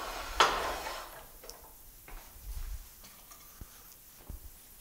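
Tailstock of a Stratos FU 230 woodturning lathe being put on and slid along the metal bed. There is a sharp metal knock about half a second in, then about a second of scraping slide, then a few light clicks and a soft thump.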